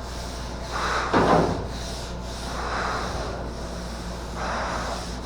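Hand block-sanding of body filler on a car roof: slow, even sandpaper strokes, about four in all, one every one and a half to two seconds.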